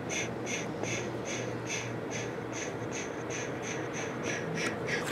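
Glossy trading cards rubbing against each other as one is slid out from behind another in short pushes: a soft scratchy rasp about three times a second, over a faint steady low hum.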